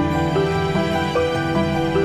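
Soft instrumental background music: a slow melody of held notes over a steady low accompaniment.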